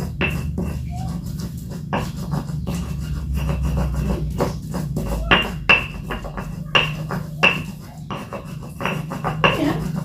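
Hands mixing food with ground chili and turmeric in a bowl: irregular rubbing and scraping with several short clinks against the bowl, over a steady low hum.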